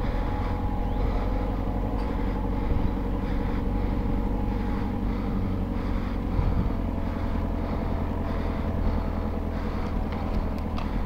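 Steady wind rumble on the microphone with tyre and road noise from a road bicycle being ridden, even and unbroken throughout.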